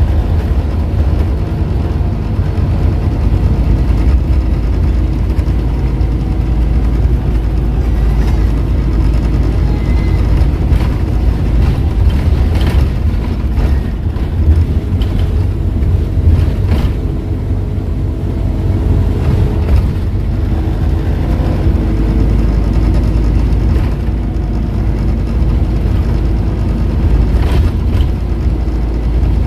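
Scania N230UD OmniCity double-decker bus running along the road, heard from inside the passenger cabin: a steady low engine drone with a faint humming tone from the ZF automatic gearbox, and a few short rattles.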